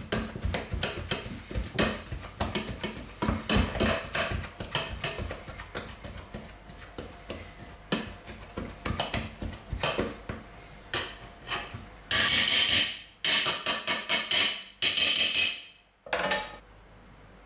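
Hand potato masher working boiled potatoes in a stainless steel saucepan: a fast run of short knocks as the masher strikes the pan's bottom. Near the end come three louder scraping noises, each about a second long, and one shorter one.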